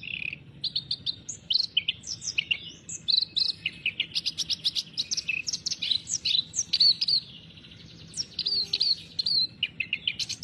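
Kerak basi, a reed warbler, singing a fast, varied song of chattering and whistled notes, with a brief pause about three quarters of the way through.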